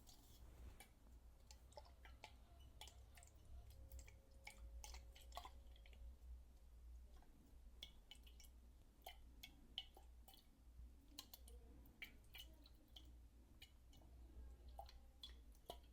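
Faint water sounds close to the microphone: scattered small clicks, drips and squishes, irregular and soft, over a steady low hum.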